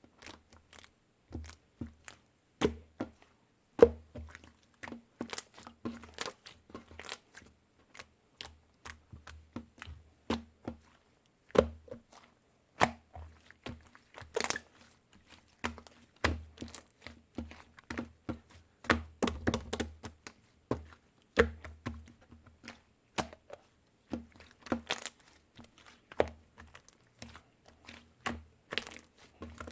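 Close handling noise: many irregular clicks, taps and crinkles, as of paper or plastic being handled, over a faint low hum.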